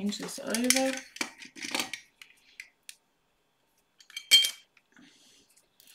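Small hard plastic diamond-painting supplies being handled on a tabletop: scattered light clicks, then one sharp clattering clink about four seconds in as they are set down.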